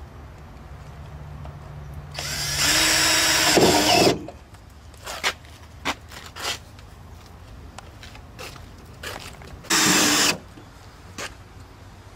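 Power drill run in two bursts: a longer one of about two seconds whose pitch drops near the end, and a shorter one about ten seconds in. Scattered light clicks and knocks come between them.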